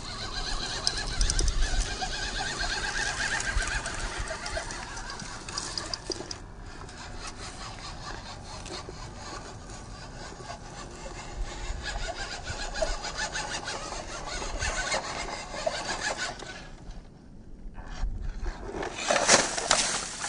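Small brushed electric motor and gearbox of a 1/14 scale RC crawler whining, rising and falling with the throttle, with tyres crackling over pine needles, rock and dry leaves. Near the end there is a loud burst of crashing as the car tumbles over in the leaves.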